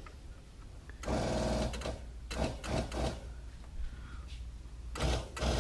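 Electric methanol injection pump of a Snow Performance stage-one kit running briefly about a second in, a steady buzz, as the newly installed system is test-run. Then a few clicks and knocks of handling.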